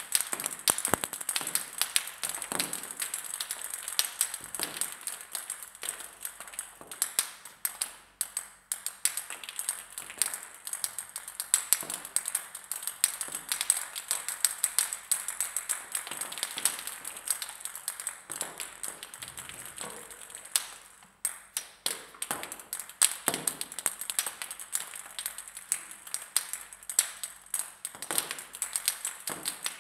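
Many plastic table tennis balls dropping and bouncing on a hard floor: a quick, irregular patter of light, sharp clicks, some bounces running together as balls settle.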